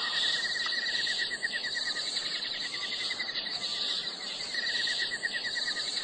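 Insects chirping: a fast, even pulsed chirp over a steady high-pitched buzz.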